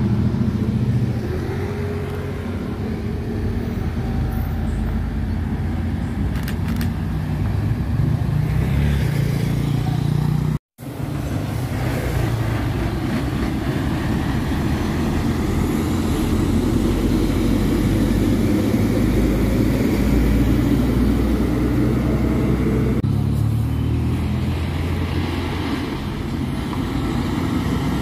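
Heavy diesel trucks running slowly in road traffic. After a brief dropout about ten seconds in, an Isuzu Giga VC61 6x4 dump truck's diesel engine is heard at low speed, its pitch rising near the end as it pulls away.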